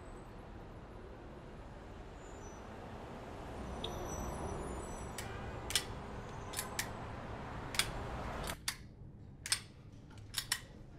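Steady outdoor ambience with faint high bird chirps. About halfway through, a string of sharp separate clicks begins. Near the end the outdoor hiss drops away to the hush of a small room while the clicks go on.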